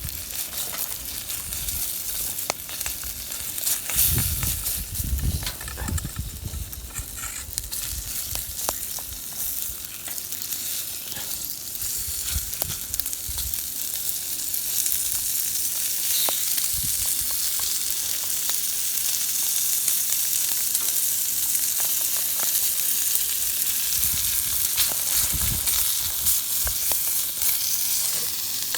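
Food frying and sizzling steadily over the campfire, with small crackling pops throughout. There are a few low thumps in the first several seconds and again near the end.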